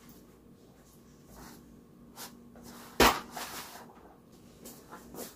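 A sharp knock about three seconds in, with a few softer clicks and knocks around it, over a faint steady hum in a small room.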